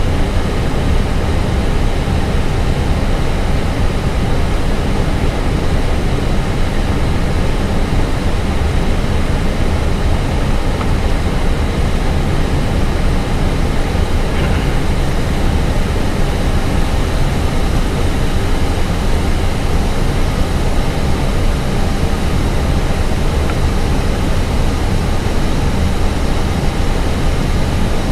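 Steady roar of airflow and engines inside an Airbus A320 cockpit on approach with flaps extended, deepest in the low range, with a faint steady high whine over it.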